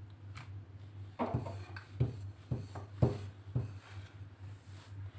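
Wooden rolling pin rolling out dough on a round rolling board: a series of knocks and rubbing strokes, roughly one every half second from about a second in, over a steady low hum.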